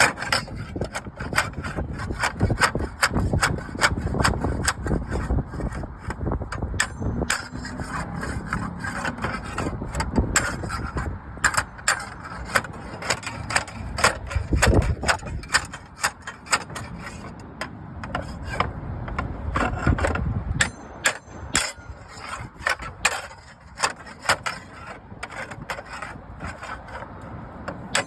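Hand tools working on roofing slate: rough scraping and rubbing with many sharp clicks and knocks, in an uneven, busy run.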